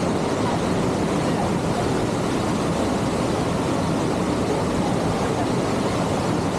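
Stream water rushing steadily in a strong current.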